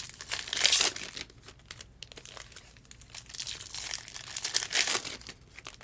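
Foil trading-card pack wrappers crinkling and tearing as packs are opened and the cards handled. Two louder bursts of rustling come about half a second in and again near the end.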